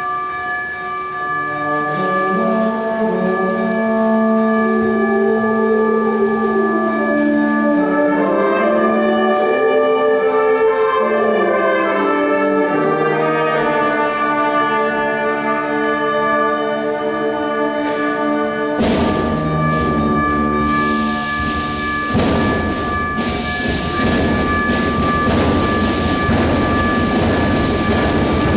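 A high school concert band plays, with brass and woodwinds holding and shifting sustained chords. About two-thirds of the way through, the percussion breaks in suddenly with a loud, dense rushing noise imitating a train, under the band.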